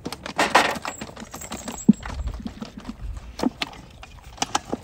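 A tethered guard dog's chain rattling in scattered clinks and knocks, with one short low thump about two seconds in.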